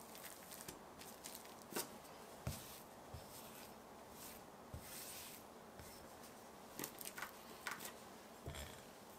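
Faint kitchen handling sounds: several light clicks and taps, a few dull low knocks, and a soft scraping rustle about halfway through, as tools and tart dough are handled on the work surface.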